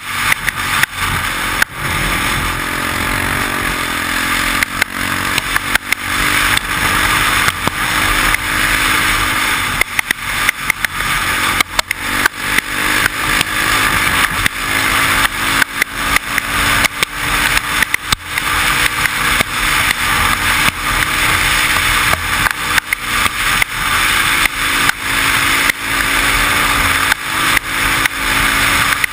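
Quad (ATV) engine running under way, its pitch rising and falling with the throttle. Heavy wind buffeting on a helmet-mounted camera and frequent short crackles and knocks from the rough track run through it.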